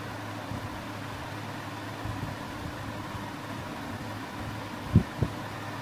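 Steady low machine hum with faint hiss: room tone. Two short soft thumps about five seconds in.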